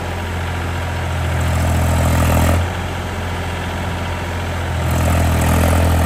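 Mahindra 265 DI tractor's three-cylinder diesel engine running under load as it pulls a rotavator in low first gear; its note swells, drops off sharply about two and a half seconds in, and picks up again near the end.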